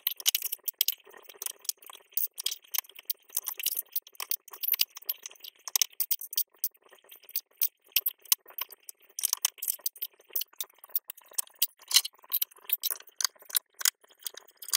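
Small plastic LEGO pieces clicking and rattling as they are picked out of a plastic tray and pressed together: many quick, irregular clicks throughout.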